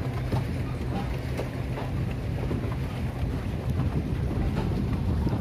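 Wind buffeting the microphone over water splashing and washing along the hull of an electric pedal boat under way, with a steady low hum underneath.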